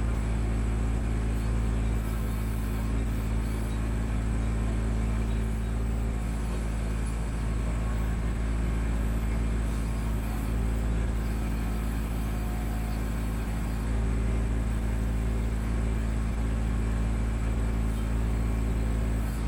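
Kubota B2650 tractor's three-cylinder diesel engine running at a steady speed.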